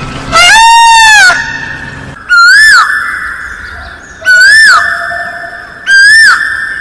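A bird's loud, ringing call repeated four times, each note rising and then falling in pitch. The first note is the longest, about a second, and the rest are about half a second, roughly two seconds apart, with a ringing tail between them.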